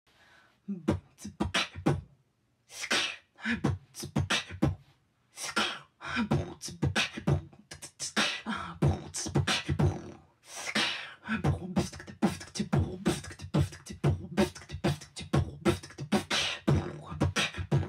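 A woman beatboxing into a microphone: a fast, rhythmic beat of deep kick-drum sounds and hissing snare and hi-hat sounds made with the mouth. It starts about a second in, with brief breaks about two, five and ten seconds in.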